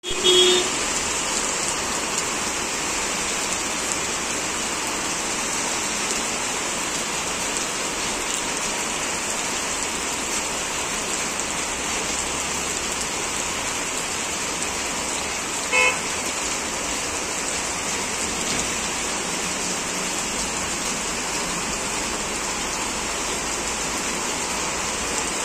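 Steady hiss of heavy rain. Two short vehicle horn toots cut through it, one at the very start and one about sixteen seconds in.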